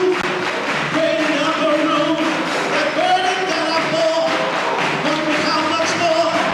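Large gospel mass choir singing in full harmony, with hands clapping along to the beat.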